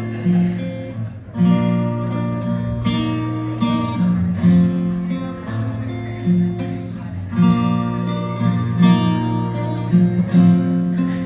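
Solo acoustic guitar playing a song's intro, chords strummed and left to ring at a slow, even pace, with no voice yet.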